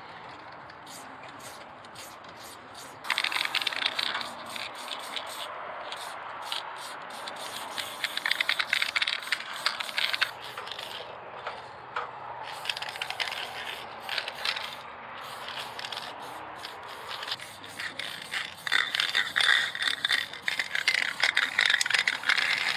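Aerosol spray paint cans hissing in short bursts, with the can's metal mixing ball rattling as it is shaken, loudest near the end.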